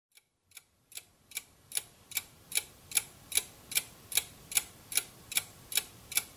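Steady mechanical ticking, about two and a half ticks a second, fading in over the first two seconds and then holding an even level.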